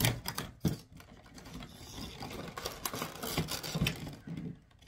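Cardboard handling: a few sharp clicks near the start, then scratchy rustling and scraping as a door of a cardboard advent calendar is opened and the item inside worked out.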